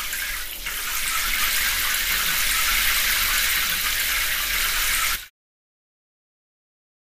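Spraying water from a train-wash sound effect: a steady hiss of water jets that cuts off suddenly after about five seconds.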